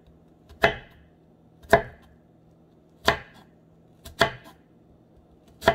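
Kitchen knife cutting a white onion into thin slices and striking a wooden cutting board: five separate chops, a little over a second apart.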